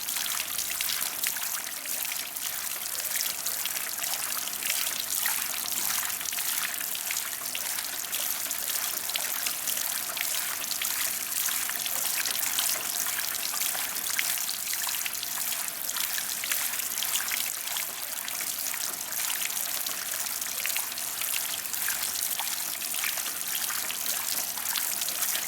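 Splash pad sprays and jets of water falling and spattering on the ground: a steady hiss of many small droplets splashing.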